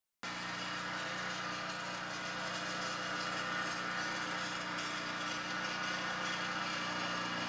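A steady engine-like hum with a hiss over it, cutting in abruptly just after the start and running on unchanged.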